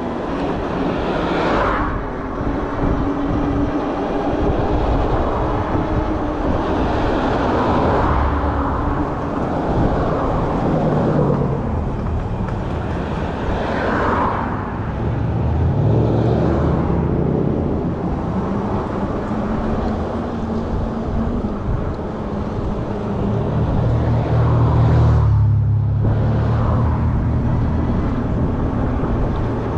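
Wind rushing and buffeting over the microphone of a moving electric bike, with road noise. Louder swells of passing traffic come about 2, 14 and 25 seconds in.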